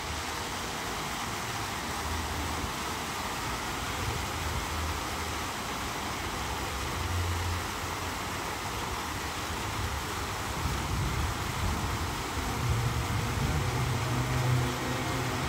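Water jets of a large multimedia fountain spraying and splashing back into the pond, a steady rush of water under a low, uneven rumble.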